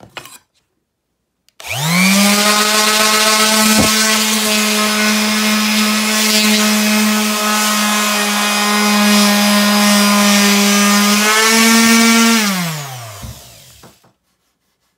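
Hyper Tough random orbital sander starting up about two seconds in and running steadily as it sands wooden boards, its hum rising slightly in pitch shortly before it winds down near the end.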